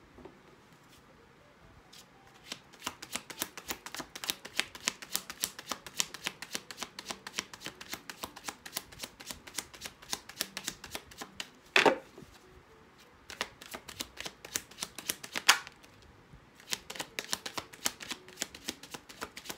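Tarot deck being shuffled by hand: three runs of rapid card flicks, with a louder knock at the end of the first two runs.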